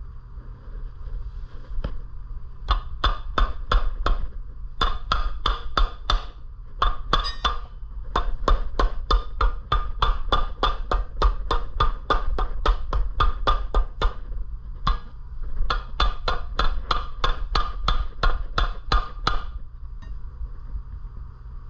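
Runs of rapid hammer blows, about three or four a second, each ringing off the metal. They land on the Predator 212cc engine's flywheel, which is stuck on the crankshaft and is being knocked loose without a puller.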